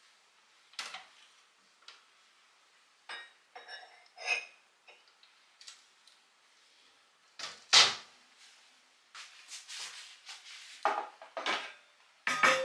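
Scattered knocks, clicks and clinks of kitchenware being handled, as a wooden glass-fronted cabinet door is opened and dishes are taken out. A sharp knock about eight seconds in is the loudest.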